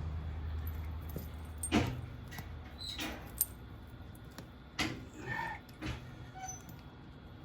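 Steel tire chains clinking and jangling as they are handled, a series of separate metallic clinks and rattles at uneven intervals. A low hum stops about two seconds in.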